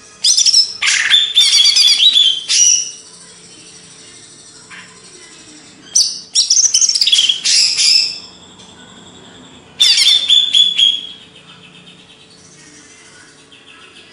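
A green leafbird (cucak ijo) singing in three loud bursts of rapid, high, varied notes with short pauses between them, over a faint steady hum.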